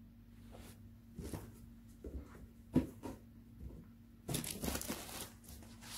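Packaging of a boxed pair of binoculars being opened by hand: scattered crinkling and tearing of wrapping, with one sharper snap about halfway and a denser stretch of rustling near the end.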